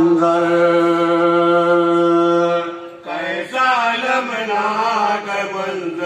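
A man chanting an Urdu devotional poem (kalam) unaccompanied, holding one long steady note for over two seconds. After a short break about three seconds in, he starts a new phrase that wavers in pitch.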